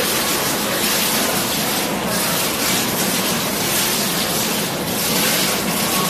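Steady hiss and splash of water falling from a digital water curtain into its catch trough, the streams released from a row of nozzles in patterns.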